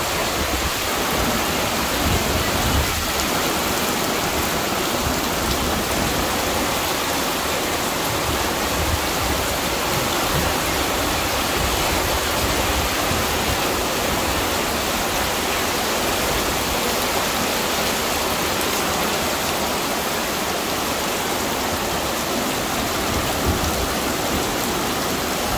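Muddy floodwater rushing past in a fast torrent while heavy rain falls. The result is a steady, even wash of water noise.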